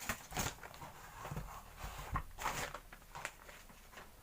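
Hands handling an unboxed motorcycle mirror and its plastic packaging: a few short, irregular clicks and rustles.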